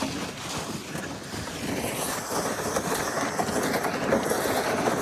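Steady scraping hiss of movement over snow, most likely a child's snowboard sliding along the snow, slowly getting louder.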